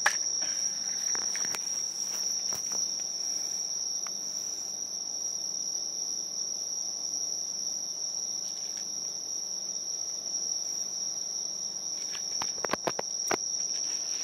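A steady, high-pitched chorus of insects, with scattered sharp clicks that bunch up briefly near the end, from a cat crunching dry kibble off a plate.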